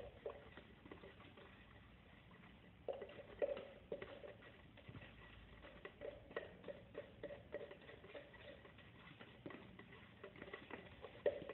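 A stick stirring Lunanuova decorative coating in a plastic tub, mixing in a little added water: faint, irregular taps and scrapes against the tub, a few a second.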